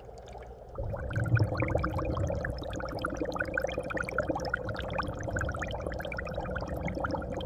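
Water bubbling and gurgling, thick with small pops, over a steady hum, starting about a second in.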